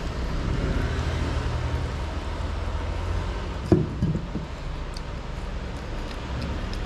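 Steady low background rumble, with a sharp knock a little more than halfway through and a brief higher-pitched sound just after it.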